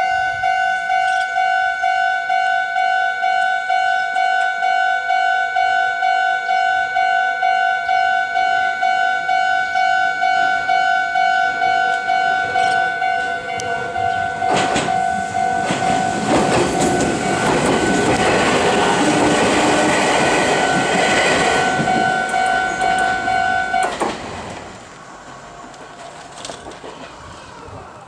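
Japanese level-crossing alarm ringing a steady, rapidly repeating ding. About halfway through, a Meitetsu 3150 series electric train passes over the crossing, and its wheel rumble and clatter build and then fade. The alarm cuts off near the end as the train clears the crossing.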